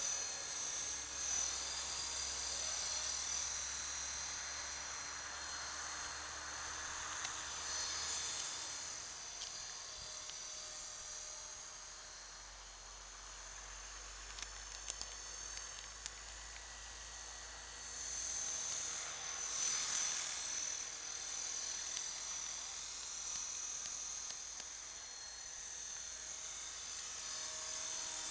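Electric T-Rex 450-class RC helicopter in flight: a steady high whine from its motor and rotor. It grows louder as the helicopter passes close, about two seconds in and again about twenty seconds in, and fades in between.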